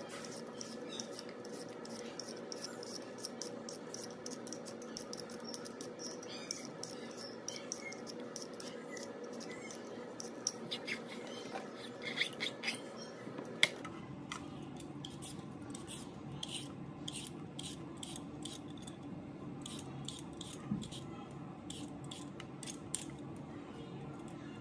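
Y-shaped vegetable peeler scraping the skin off potatoes and a carrot in short strokes, about two a second.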